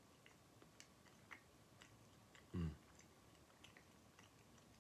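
Faint, soft chewing and small mouth clicks of a person eating a moist mini baked cheesecake, with one short "mm" hum falling in pitch about two and a half seconds in.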